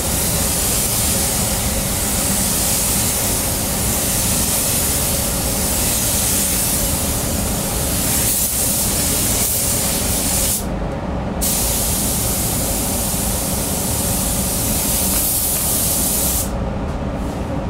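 Compressed-air paint spray gun hissing steadily as it sprays paint onto a car body, with a steady low rumble underneath. The hiss stops for under a second about eleven seconds in, when the trigger is let go, and stops again near the end.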